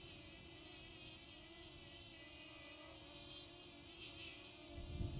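Faint, insect-like buzz of a DJI Flip drone's propellers in flight, several wavering pitches held steady. Near the end, wind rumbles on the microphone.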